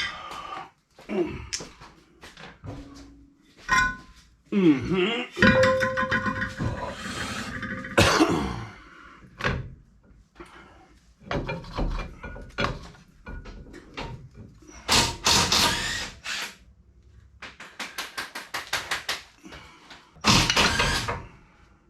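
Hand tools knocking and clanking on metal parts of a car's rear axle and brakes, with short metallic rings and a fast run of clicks about two-thirds of the way through.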